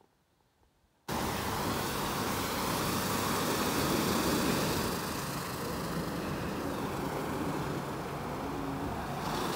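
After a faint first second, a WashTec Combiwash rollover car wash starts up suddenly and runs with a steady noise: its rotating side and top brushes scrub the car and water sprays.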